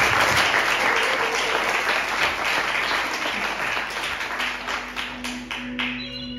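Audience applauding, loud at first and slowly dying away. Soft music with steady held tones comes in about two-thirds of the way through.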